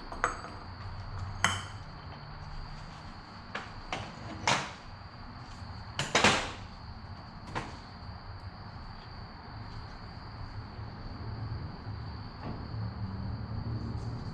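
Tools and metal engine parts knocking and clinking in a series of sharp separate strikes, the loudest about six seconds in, then only a low hum with a steady high tone in the background.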